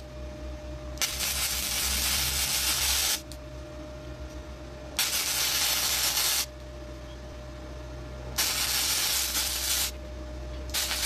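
Flux-core arc welding on thin steel exhaust pipe with a Flameweld MTA1450 multi-process welder: three bursts of arc crackle, each about one and a half to two seconds long, with a fourth run starting at the very end. A faint steady hum runs underneath.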